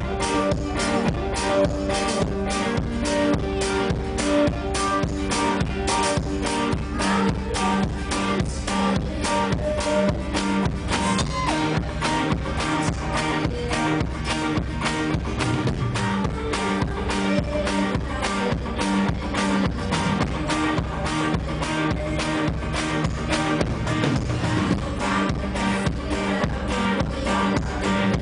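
Amplified acoustic guitar strummed in a steady rhythm, with a woman singing over it, in a live concert performance.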